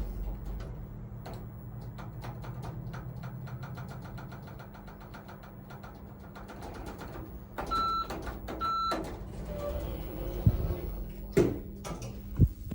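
ThyssenKrupp passenger lift: a steady hum with fast, even clicking from the door and drive mechanism, then two short electronic beeps about a second apart, and a couple of sharp knocks near the end.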